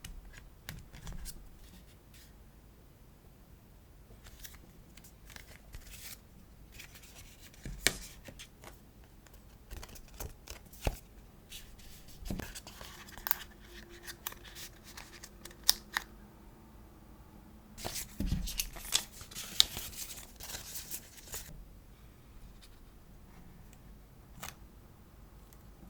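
Hands unboxing an iPhone SE 2: scattered clicks, taps and scrapes of the cardboard box and its packaging being handled, with a busier stretch of scraping and crinkling about two-thirds of the way through.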